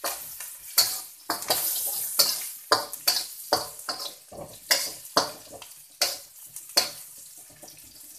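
Spatula scraping and knocking against a steel wok in repeated stir-fry strokes, about two a second, while sliced red onions sizzle in hot oil. The strokes stop about seven seconds in, leaving a quieter sizzle.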